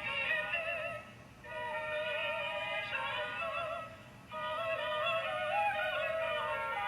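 A musical clip played back through a sound book's small built-in speaker: a thin, tinny melody with wavering, vibrato-laden notes, in phrases broken by two short pauses.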